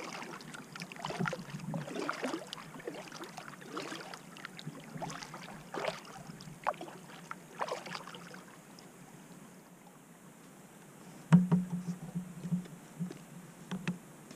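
Kayak paddle dipping into calm water with irregular drips and small splashes, then a sharp knock against the hull about eleven seconds in.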